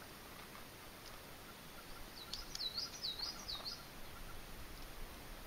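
A bird calling: a quick run of about five high, swooping notes about two seconds in, over faint open-air background noise.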